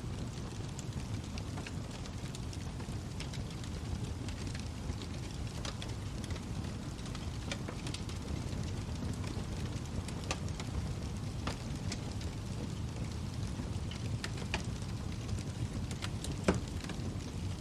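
Wood fire burning in a fireplace: a steady low rumble of flames with scattered sharp crackles and pops, one louder pop near the end.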